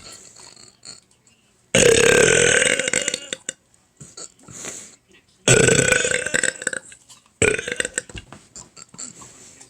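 A person burping loudly three times, each burp long and drawn out, the last two close together.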